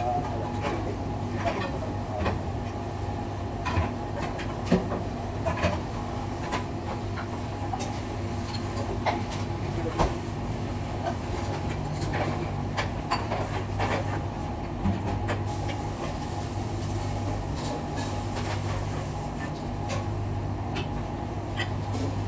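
Busy restaurant kitchen ambience: a steady low machine hum under frequent, irregular clatter and knocks of dishes, pans and utensils.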